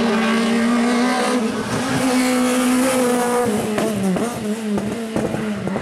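A rally car engine held at high revs with a steady note, then dipping and wavering with a few short crackles about four to five seconds in.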